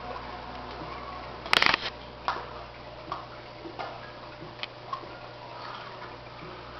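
Steady hum of aquarium equipment with a faint bubbling hiss, broken about one and a half seconds in by a quick cluster of sharp clicks, then several single clicks over the next few seconds.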